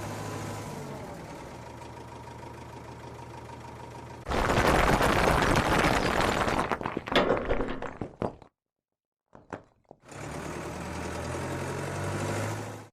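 Animated wheel loader's engine running steadily. About four seconds in, a loud rattling rush of rocks and sand tipping from its bucket into another vehicle lasts about four seconds. After a second's silence, the engine runs again.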